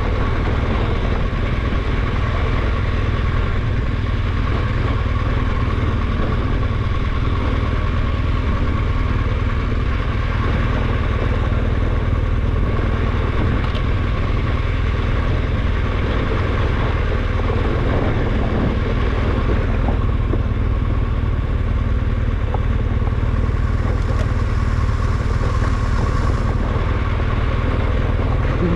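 Adventure motorcycle running steadily while being ridden, a constant low-heavy engine and riding noise with no breaks.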